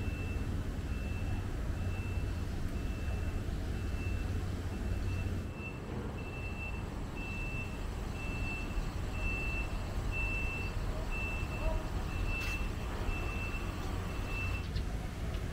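An electronic beeper sounding a steady high beep about twice a second, like a vehicle's reversing alarm, which stops shortly before the end. A steady low rumble runs underneath.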